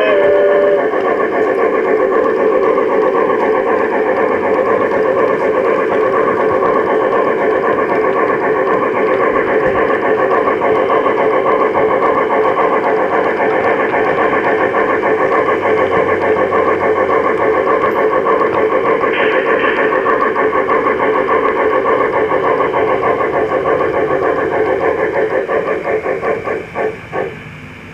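Model Shay geared locomotive running close behind, a loud, steady, fast chuffing. Near the end it breaks into a few separate puffs and drops away.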